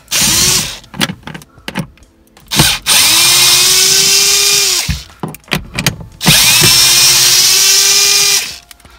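Cordless drill spinning a 7 mm socket on an extension to back out dash-pad bolts. There is a short burst right at the start, then two runs of about two seconds each; in each the motor pitch rises as it spins up and then holds steady. Small knocks and clicks of handling fall between the runs.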